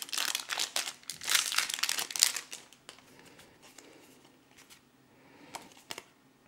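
Foil trading-card booster pack wrapper crinkling as it is torn and peeled open, for about two and a half seconds. Then a few faint clicks as the cards are flicked through.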